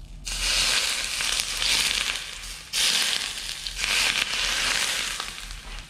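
Boiling-hot cooking oil poured from a pan over steamed yellow croaker and shredded green onion, sizzling hard as it hits. The sizzle starts a quarter second in, breaks off briefly just before three seconds as the pour is moved, then surges again and fades near the end.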